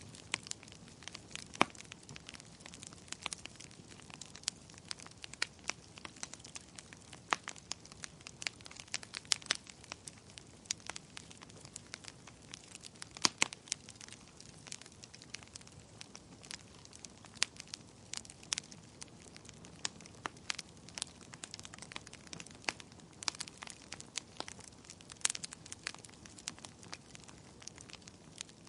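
Fire crackling: irregular sharp pops and snaps, now and then a louder one, over a soft steady hiss.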